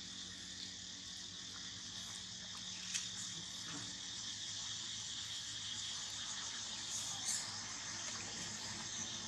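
Steady high-pitched insect chorus, with a couple of brief sharp clicks, about three seconds in and again about seven seconds in.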